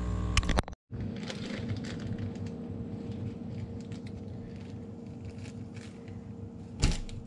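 Steady background hum with faint rustling from a small plastic bag being handled, and one sharp knock near the end. The sound cuts out briefly just under a second in.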